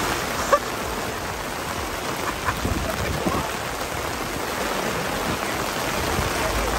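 Heavy rain pouring down onto wet stone paving, a dense steady hiss of splashing water. A single sharp tap stands out about half a second in.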